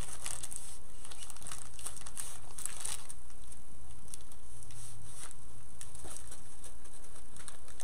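Faint crinkling and light clicks of floral stems and wire being handled and snipped with pliers, most frequent in the first few seconds, over a steady low hum.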